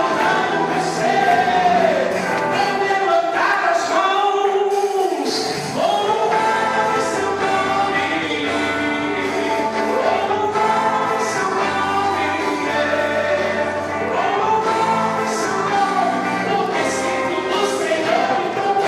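Portuguese-language gospel worship song with a choir singing the melody over a full band. The bass drops out briefly about five seconds in, then comes back.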